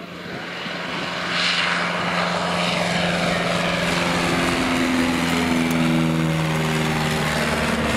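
Piper PA-22-108 Colt's four-cylinder Lycoming O-235 engine and propeller at climb power as the plane lifts off and passes overhead. It grows louder over the first second and a half, then holds steady while its pitch drops as it goes by.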